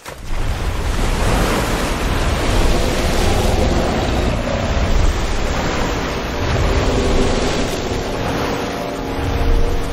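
A giant creature bursting up out of a lake: a sudden, loud surge of crashing, churning water and falling spray with a deep rumble underneath, as in film sound design.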